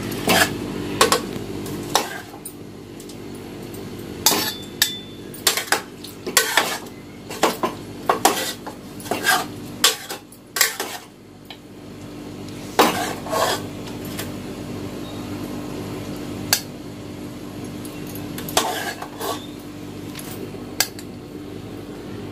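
Metal ladle clinking and scraping against an aluminium cooking pot and a metal bowl as chicken curry is spooned out, in irregular knocks and clinks over a steady low hum.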